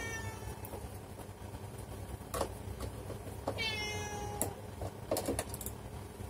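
Domestic cat meowing twice, once right at the start and again about three and a half seconds in, with a few light clicks in between.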